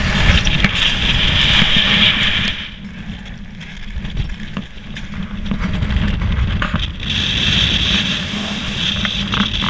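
Strong wind buffeting an action camera's microphone, a low rumble with hiss over it. It eases about two and a half seconds in and picks up again around seven seconds.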